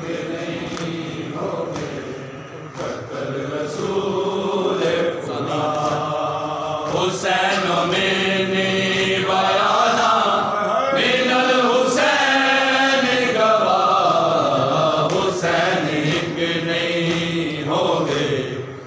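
Men chanting a noha in long, held, wavering lines, with sharp slaps of hands beating on chests (matam) breaking in at intervals.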